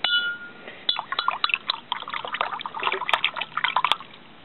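A metal spoon stirring powder into water in a glass vase: a ringing clink as the spoon hits the glass, then quick clinking of the spoon against the glass with sloshing water for about three seconds, stopping near the end.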